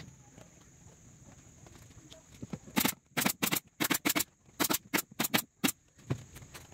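About a dozen sharp wooden knocks in quick, uneven succession over some three seconds, starting a little before the middle, as a glued wooden strip is fitted onto the floor of a plywood speaker box.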